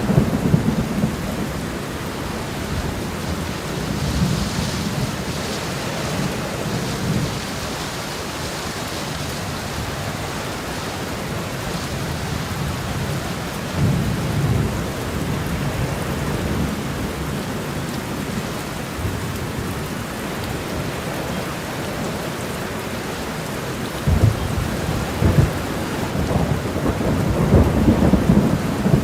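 Steady heavy rain with rolling thunder: deep rumbles swell at the very start, again briefly about halfway through, and repeatedly over the last few seconds.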